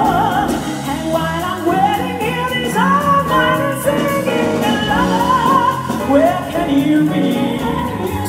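A woman singing a slow melody with vibrato, over instrumental accompaniment.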